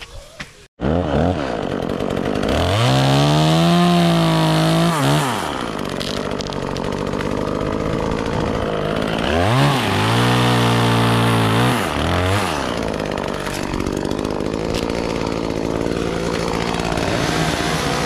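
A chainsaw revs up twice, each time for about two to three seconds, and drops back to idle in between and afterwards.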